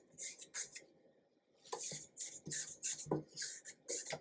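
Spatula scraping thick frosting down the inside of a stainless steel stand-mixer bowl while the mixer is stopped: a run of short scrapes, with a brief pause about a second in.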